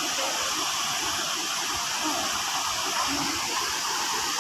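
Steady rushing water, like a waterfall or fast stream.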